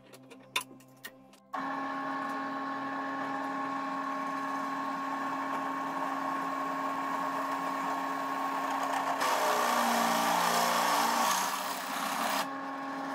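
FABTEC B16 benchtop drill press motor switching on about a second and a half in, after a few light clicks, and running with a steady hum. About nine seconds in, a louder, rougher cutting noise lasts about three seconds as the 13 mm bit bores through the pipe's 5 mm wall without a pilot hole. Then the motor runs free again.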